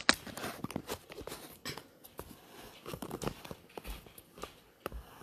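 Irregular clicks, knocks and rustling of a smartphone being handled close to its microphone as it is held and settled.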